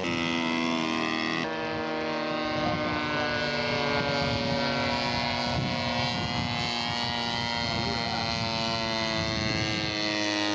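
Engine and propeller of a large radio-controlled scale model Stearman biplane running steadily in flight just after takeoff, the pitch slowly sagging as it flies.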